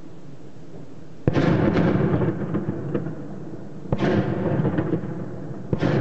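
Three heavy explosions, each a sudden boom followed by a rolling echo lasting a second or more, spaced about two and a half seconds apart.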